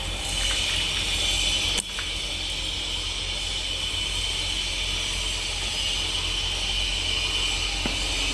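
Water jetting from a bilge separator's outlet pipes and splashing down, a steady hiss, over the low hum of the separator's running pump motor. A single sharp click about two seconds in.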